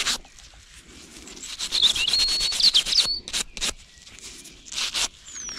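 Quick rubbing strokes, about ten a second, in several short runs, as soil is rubbed off a freshly dug-up metal badge. A small bird chirps over the loudest run, about two seconds in.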